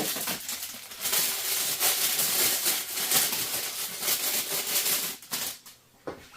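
Busy rattling and rustling of small metal parts being handled, a dense run of fine clicks that stops abruptly about five and a half seconds in.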